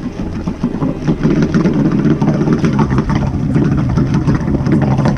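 Two-stroke three-cylinder jet ski engine (an 1100cc Kawasaki triple swapped into a 650SX) running with a choppy note, getting louder about a second in.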